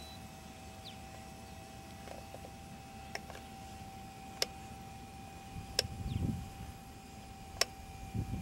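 Faint steady whine of the small electric motors of two radio-control model Cub airplanes flying overhead, with low wind rumble on the microphone and a few sharp clicks.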